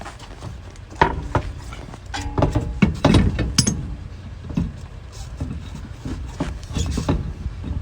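Irregular metal clanks, knocks and clinks as a heavy van wheel is shifted and turned to line up with the hub studs and pushed onto them, a few strikes ringing briefly, over a steady low rumble.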